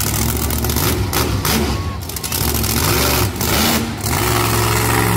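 Monster truck engine running loud, its revs rising and falling in short blips as the truck waits to go.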